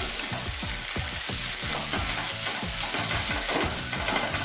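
Mashed mustard greens frying in a pan with a spiced onion-tomato masala, sizzling while being stirred in quick repeated strokes, about three a second.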